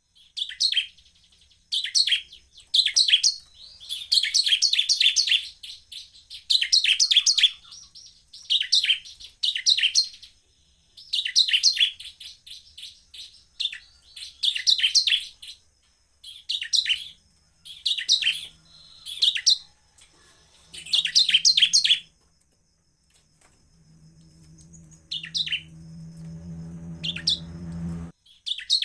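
Bar-winged prinia (ciblek) singing in quick bursts of sharp, rapidly repeated chirps, a new burst every second or two. Near the end the bursts thin out while a low hum swells underneath and stops abruptly.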